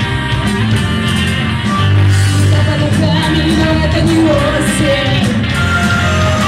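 Rock band playing a song, with guitar, a heavy bass line and a singing voice.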